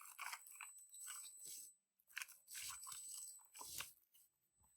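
Faint, irregular rustling and crinkling of box packaging and foam padding as a keyboard is lifted out of its box, in several short clusters.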